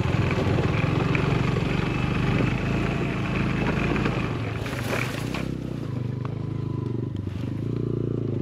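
Suzuki motorcycle engine running at low speed over a stony trail, then settling to a steady idle about five seconds in as the bike comes to a stop.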